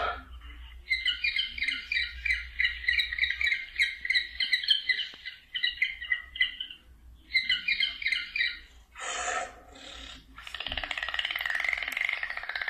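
Bird chirping in quick, evenly spaced high chirps, about four a second, with a pause of about a second and a half in the middle. Near the end it changes to a short burst of noise and then a dense, buzzing trill that wavers in pitch.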